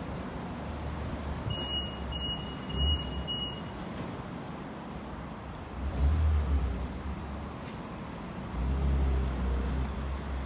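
City street traffic noise with low rumbling swells as vehicles pass. About a second and a half in come four short, high beeps in quick succession.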